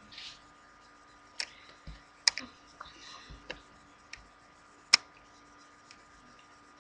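A handful of scattered sharp clicks and light taps, two of them much louder than the rest, with a short breathy hiss, over a faint steady electrical hum.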